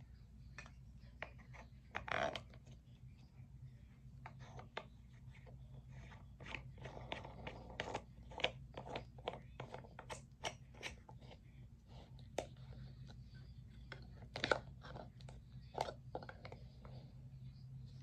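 Wooden toy tool kit pieces being handled and fitted together: many small, irregular wooden clicks, taps and light scraping as wooden bolts turn and parts knock against the wooden toolbox, with one sharper knock late on. A low steady hum runs underneath.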